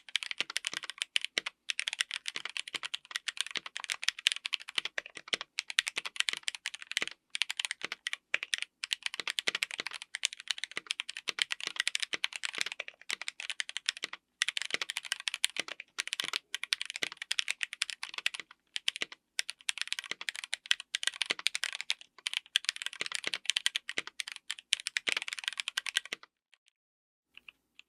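Typing sound test on a mechanical keyboard fitted with Akko Sakura linear switches (polycarbonate top housing, nylon bottom housing, POM stem): rapid, dense keystrokes in runs with brief pauses, stopping shortly before the end.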